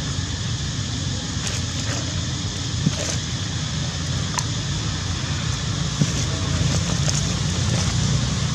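Steady low rumble and hiss of outdoor background noise, with a few faint clicks.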